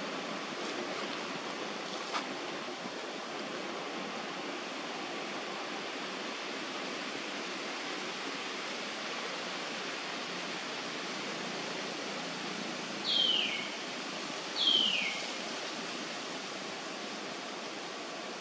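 Steady outdoor background hiss, with two short high-pitched animal calls about a second and a half apart late on, each sliding down in pitch. A faint click comes about two seconds in.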